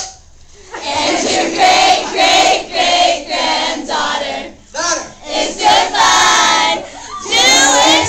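A crowd of young fans singing along with a live acoustic performance in short phrases, with high-pitched shouts and screams growing louder near the end.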